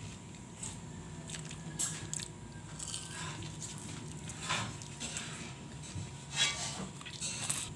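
A person chewing and biting food, with a few short crunchy sounds scattered through it over a low steady hum.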